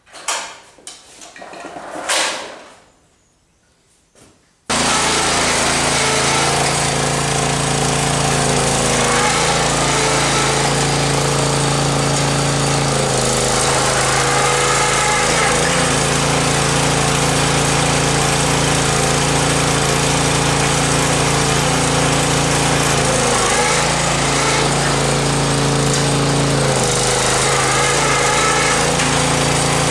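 Small petrol engine of a home-built go-kart running steadily at high revs, with a few brief dips in pitch. A few knocks and a short quiet come before it; the engine sound starts abruptly about five seconds in.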